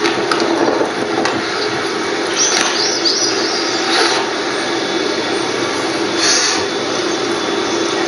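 A steady rushing noise, with birds chirping briefly about two and a half seconds in and again near six seconds.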